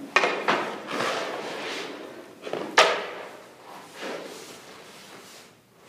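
Goalie's skates scraping and leg pads knocking on the rink surface as he moves and drops into a butterfly slide. There are a few sharp knocks, the loudest just under three seconds in, each trailing off into scraping.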